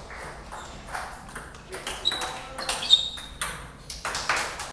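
Table tennis ball clicking back and forth in a fast rally: crisp strikes off rubber-faced paddles and bounces on the table, about two or three a second, unevenly spaced. Two short high squeaks come about two and three seconds in.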